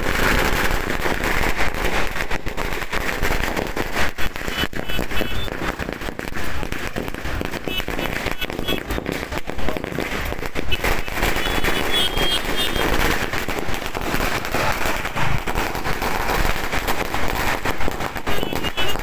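A long string of firecrackers going off on the ground: a continuous, rapid crackle of bangs that never lets up.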